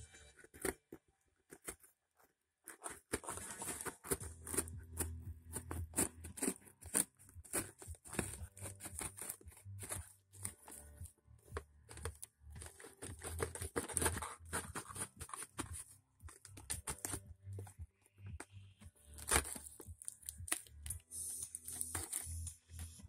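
Packing tape being torn and peeled off a cardboard parcel in short, irregular rips, with music playing underneath.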